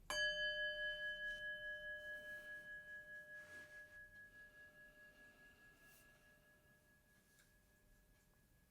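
A meditation singing bowl struck once, ringing with a low tone and a few higher overtones that waver in a steady pulse as they slowly fade away over about seven seconds.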